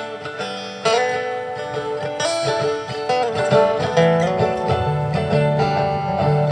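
Instrumental break in an acoustic song: plucked strings picking a melody over low bass notes, with no singing.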